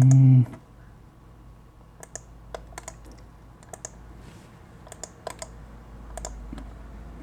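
A man's drawn-out hum or held vowel breaks off about half a second in. It is followed by about a dozen irregular, sparse clicks of computer keys.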